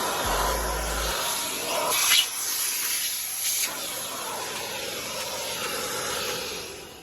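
Hart 3-in-1 wet/dry vacuum running with a steady hissing suction, briefly louder twice as the nozzle draws in air. It shuts off near the end.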